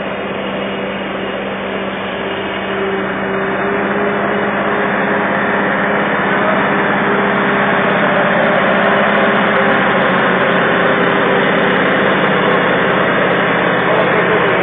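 Heavy diesel engine running steadily with a low, even hum, growing louder over the first half.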